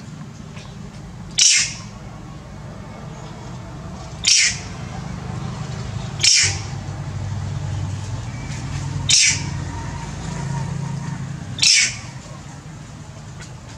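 Young long-tailed macaque giving short, sharp, high-pitched screams five times, one every two to three seconds, while its wound is cleaned and treated: cries of pain.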